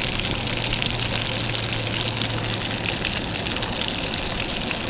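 Kelp greenling fillets and blackberries frying in butter in a small pan on a propane camp stove: a steady sizzle with fine crackles.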